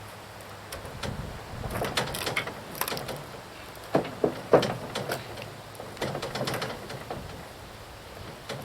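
Wood being handled: irregular knocks and scraping clatter, with a few sharper knocks about four seconds in.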